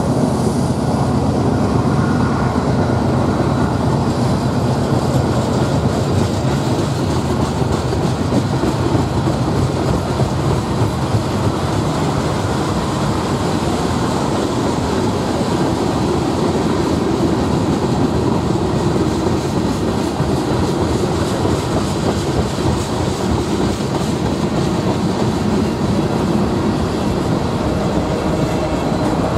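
Cars of a mixed freight train rolling steadily past: a continuous rumble and clatter of steel wheels on the rails.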